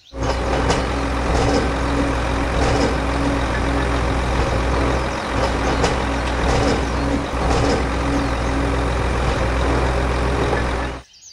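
Vehicle engine running steadily with a deep hum, cutting off abruptly near the end.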